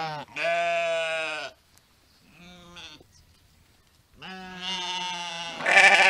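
Sheep bleating: one bleat of about a second just after the start, a fainter short one around two and a half seconds, then a long bleat from about four seconds in that swells loudest near the end.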